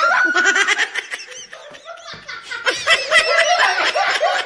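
A group of people laughing hard in rapid ha-ha bursts, easing off briefly about halfway through and then breaking out again.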